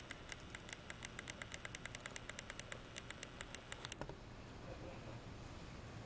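Rapid, even mechanical clicking, about six clicks a second, that stops abruptly about four seconds in.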